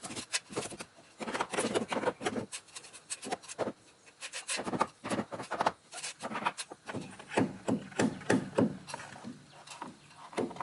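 Wooden bird blocks being handled and fitted into place on a roof frame: a run of irregular wooden knocks, taps and scraping.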